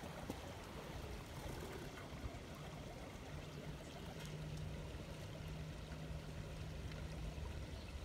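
Steady rushing of a bubbling stream, with a faint low hum for a few seconds in the middle.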